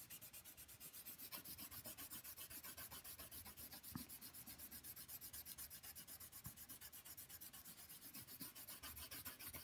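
Wooden coloured pencil scratching back and forth across paper in fast shading strokes, about seven a second, with a light tap about four seconds in.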